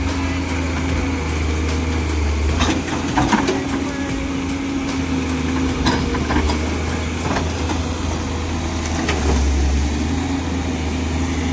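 Komatsu hydraulic excavator's diesel engine running steadily, with a few sharp knocks and clatter from the digging work about three, six and nine seconds in.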